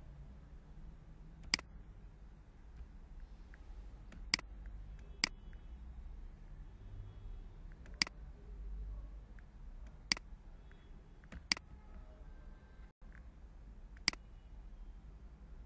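Computer mouse clicking: seven sharp single clicks at irregular intervals a second or more apart, over a faint low hum.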